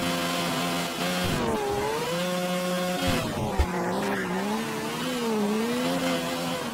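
Video-game race car engine sound, its pitch rising and falling with the revs as the car drives over rough ground, with a few short low thumps.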